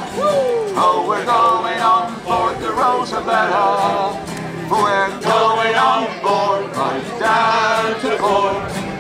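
A men's sea-shanty group singing together, with acoustic guitar accompaniment.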